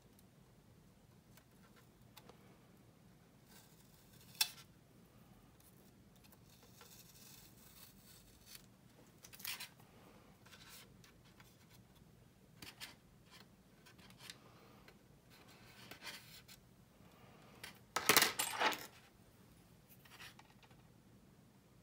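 Quiet handling noises at a modelling bench: scattered light clicks and rustles as tweezers and thin masking tape are worked on a plastic model aircraft and the model is turned in the hand. A short cluster of clicks and rattles near the end is the loudest sound.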